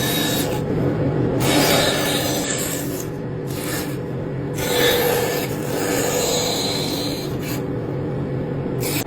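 Rasping and rubbing on wood in several irregular strokes, each a surge of scraping hiss.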